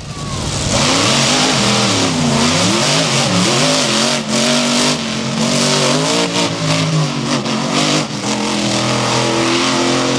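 Monster truck engine revving hard, its pitch rising and falling again and again as the throttle is worked, with a loud rushing hiss over it.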